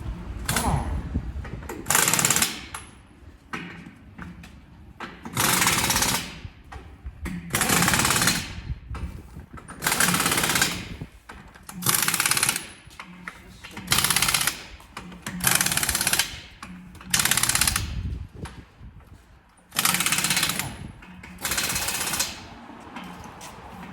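Pneumatic impact wrench hammering in short runs of about a second, roughly every two seconds, about eleven times, typical of running wheel nuts on or off during a tractor tyre change.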